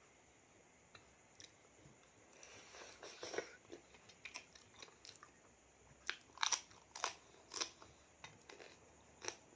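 A person chewing a mouthful of spicy seafood salad with wet, crackly crunches. A cluster of crunches comes about two seconds in, and a quicker, louder run of them from about six seconds.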